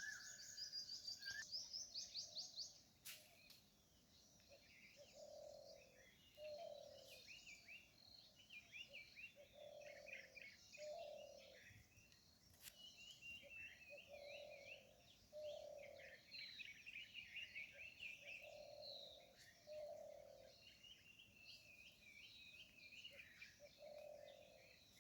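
Faint chorus of wild birds chirping and trilling, with a low two-note call that repeats in pairs every four to five seconds.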